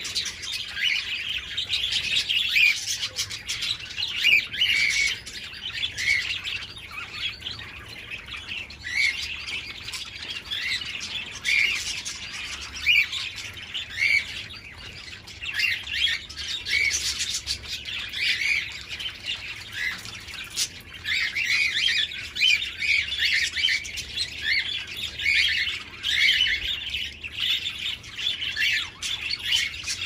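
Budgerigars chattering: a steady run of warbles, chirps and squawks from several birds, without pause.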